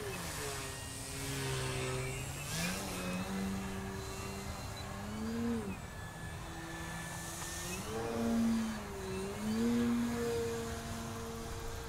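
Motor and propeller of a 57-inch 3DHS Extra 330SC radio-controlled aerobatic plane droning in flight. Its pitch sinks and rises several times as it manoeuvres.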